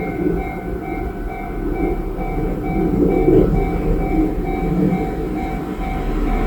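Japanese level-crossing warning bell ringing its steady electronic ding, about two strikes a second, over the rumble of a train running through the crossing.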